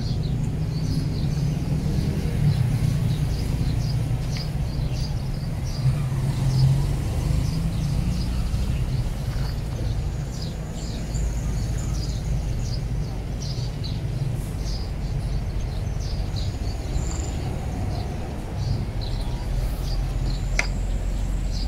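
Outdoor background: a steady low rumble with many short, high bird chirps scattered through it.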